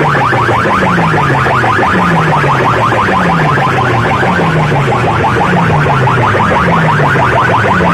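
Loud electronic buzzing from a DJ sound-system speaker rig playing a competition track: a low bass tone falls in pitch and repeats about once a second under a fast, harsh, alarm-like buzz.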